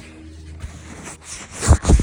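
Faint rustling, then two heavy, sudden thumps with a hissy edge near the end.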